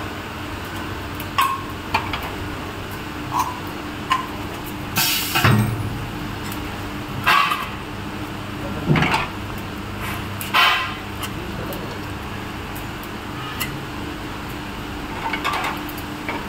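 Automatic film-wrapping packaging machine with a chain conveyor running: a steady motor hum broken by irregular sharp mechanical clacks and short hisses every one to three seconds, the loudest and longest hiss about five seconds in.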